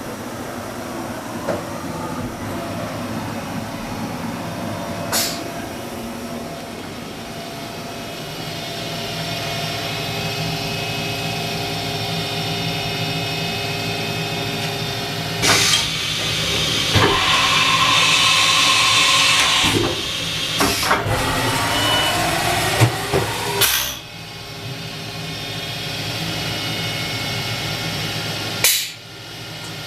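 Haas VF-3 SS CNC vertical machining center running: a steady mechanical hum with motor whines that rise and fall in pitch, several sharp clunks spread through, and a loud hiss lasting a few seconds in the middle.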